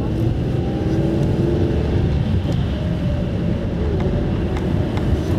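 Car cabin noise while driving: a steady low rumble from the engine and from the tyres on a wet, snow-covered road, with a few faint clicks.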